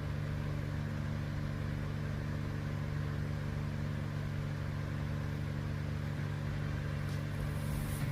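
A steady low mechanical hum made of several unchanging low tones, with no bangs or other sudden sounds.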